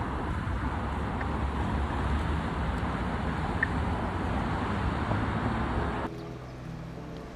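Steady road traffic noise, a low rumble with a hiss, cutting off suddenly about six seconds in; after that, faint background music.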